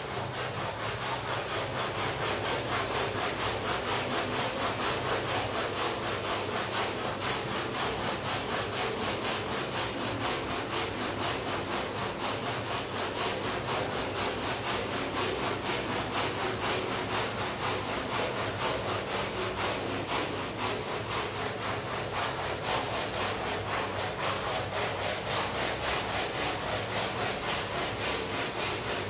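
A stiff brush scrubbing a rug in quick, even back-and-forth strokes, about four a second, with a steady low hum underneath.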